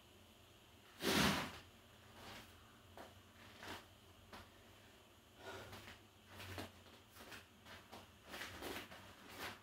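Bare feet stepping off and back onto an inflatable balance disc on a rubber gym floor: a loud scuff about a second in, then several softer thuds and rubbing sounds of the feet and disc.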